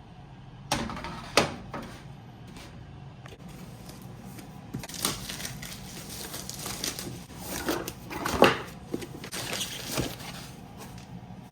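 Knocks, clicks and scraping of a power supply and its cables being handled and fitted into a metal PC tower case, with two sharp knocks about a second in and irregular clattering and rustling later on.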